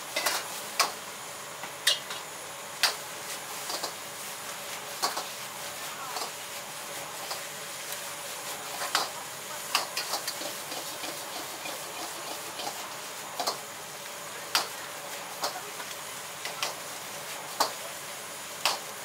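Wok stir-fry over a high gas flame: food sizzling with a steady hiss, while a metal ladle and spatula scrape and clank against the wok at uneven intervals, about once or twice a second.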